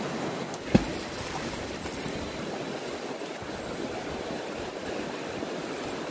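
Shallow rocky river flowing steadily over stones, with one short thump about a second in.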